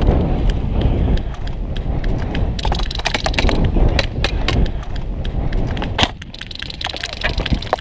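Heavy rumbling noise on the microphone with many sharp cracks and snaps scattered throughout.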